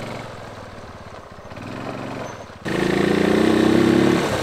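Small 250 cc Chinese quad bike engine running as the ATV is ridden along a gravel track. The engine note is fairly quiet at first, then about two and a half seconds in it jumps suddenly louder and fuller.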